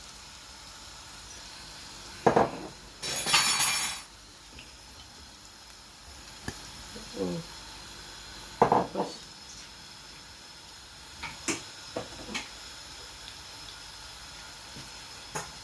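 A large batch of onions added to hot ghee and oil in a cooking pot: a rush of noisy sizzling lasting about a second, then a low steady sizzle under scattered knocks and clinks of a utensil against the pot.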